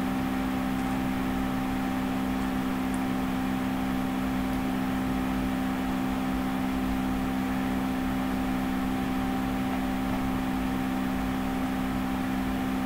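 Steady background hum and hiss with a few constant tones and a low rumble, unchanging throughout.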